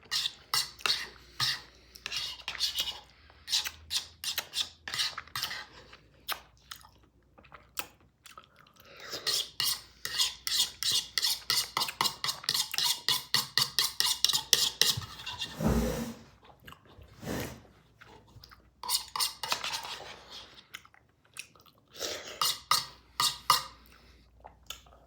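A metal fork clinking and scraping against a bowl as spinach with olive oil and lemon is mixed, in many quick strokes, with a steady fast run in the middle and a dull knock about sixteen seconds in.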